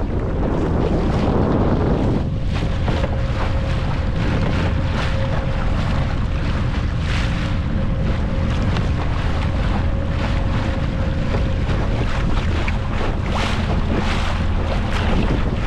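Small open dinghy under way on its outboard motor, the engine running steadily under the rush and slap of choppy water along the hull. Heavy wind buffets the microphone in gusts, and a steady engine tone settles in about two seconds in.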